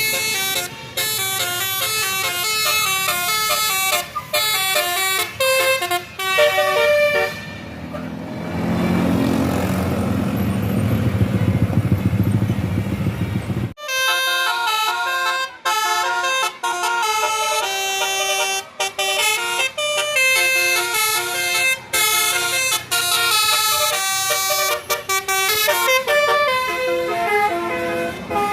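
Tour buses' 'telolet' multi-tone horns playing quick stepped melodies, one note after another. About eight seconds in, the horns give way to several seconds of a bus's diesel engine running loudly, which cuts off suddenly before the horn tunes start again.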